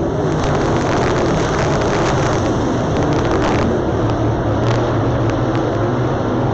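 Engines of a pack of dirt late model race cars running hard together: a steady, dense racing-engine noise.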